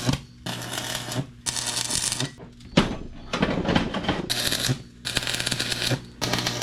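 Electric arc welder laying a series of short welds on steel, about seven bursts of crackling arc, each under a second, with brief pauses between them.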